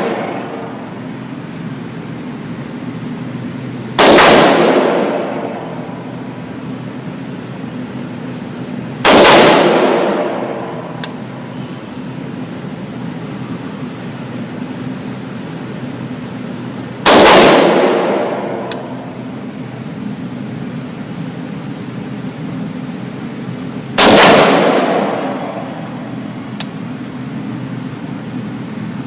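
AR-15 rifle fired four single shots several seconds apart, each sharp crack trailing off over a second or so. A steady low background hum runs between the shots.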